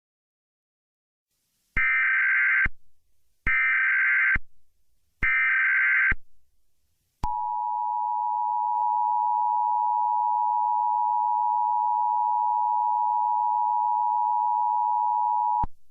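Emergency Alert System broadcast tones: three short blasts of screechy data-header tones about a second apart, then the steady two-tone attention signal, which runs about eight seconds and cuts off suddenly.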